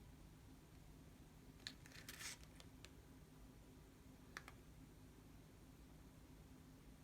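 Near silence: faint steady room hum with a few faint clicks and a brief rustle about two seconds in, and two more clicks past four seconds. The smoke alarm stays silent, failing to respond to the smoke held up to it.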